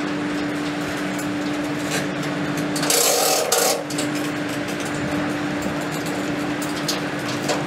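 Boat trailer's hand winch being cranked, clicking irregularly, as a polyethylene catamaran hull is drawn up onto the aluminium trailer, with a louder scraping noise lasting under a second about three seconds in. A steady engine hum runs underneath.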